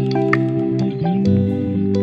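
Background music: gentle plucked guitar over held chords, the chord changing about a second in.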